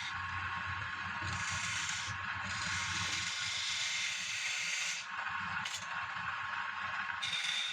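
Wood lathe running while a tool or sandpaper works the spinning palm-wood bowl: a continuous scraping hiss over a low motor hum.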